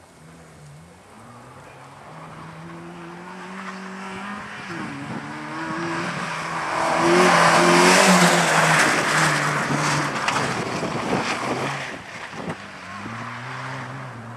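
Ford Puma rally car approaching at speed and passing by, its engine revving up and dropping back through gear changes. It is loudest about eight seconds in, then fades as it moves off.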